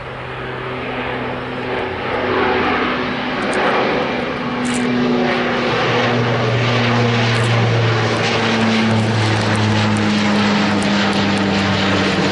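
Bombardier Dash 8 Q400 twin turboprop climbing out after takeoff: a steady propeller drone with a low hum. It grows louder over the first two seconds and then holds, its pitch sagging slightly.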